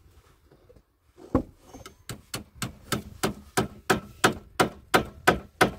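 Steady strokes of a hand tool working wood, about three a second, starting about a second in.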